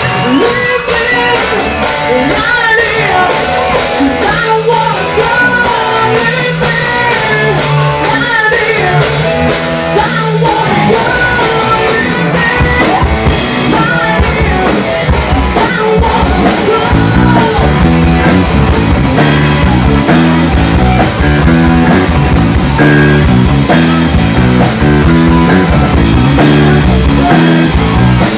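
Live rock band playing loud on drum kit and electric guitar. A melodic line winds over the top for the first ten seconds, then the low end comes in heavier and more driving.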